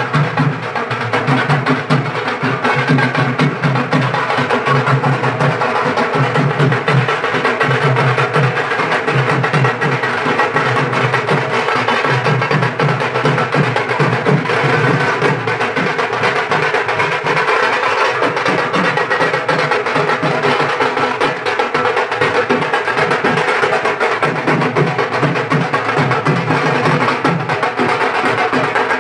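Dhak drums beaten with sticks by a group of Bengali dhakis, with hand-held kashor gongs struck alongside, playing a continuous festival rhythm.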